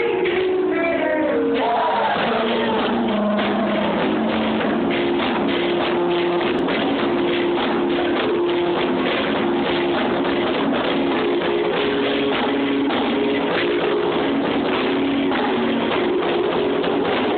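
A chorus singing in several parts, holding long steady chords, with the voices sliding in pitch in the first couple of seconds. Recorded on a phone, so the sound is dull with no high end.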